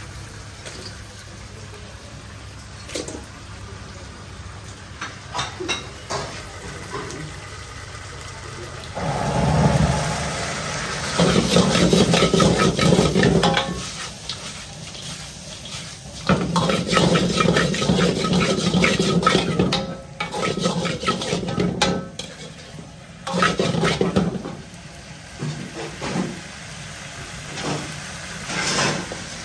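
Kitchen work sounds. A few light metal clinks, then, from about a third of the way in, water running hard in several bursts of a few seconds each, with pans and utensils clattering between them.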